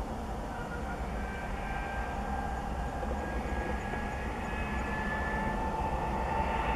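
Twin ALCO WDG-3A diesel locomotives working a freight train: a low engine rumble under a high turbocharger whine that rises slowly in pitch, growing a little louder as they approach.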